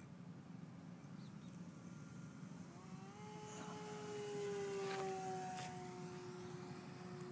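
Electric motor and propeller of a ParkZone P-51 Mustang RC plane on a 4S pack, whining as it flies past at speed. The whine comes in about three seconds in, is loudest around five seconds, then slides slowly lower in pitch as the plane moves away.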